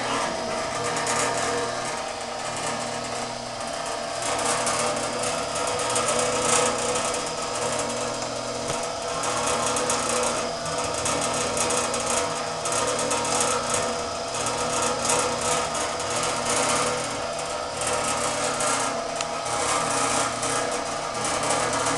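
Automatic band saw blade sharpener and setter running, a steady motor hum under a fast, continuous mechanical clatter as the machine works through a band saw blade.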